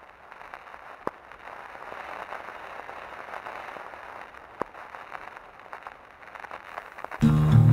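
Steady hiss with scattered crackles and two sharper clicks, about a second in and near the middle. Loud music starts abruptly near the end.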